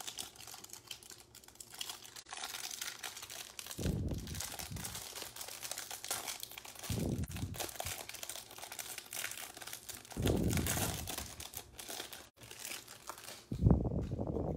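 Clear plastic wrap being peeled and crinkled off a pack of 2020 Playbook football trading cards. There are a few low bumps of handling, the loudest near the end.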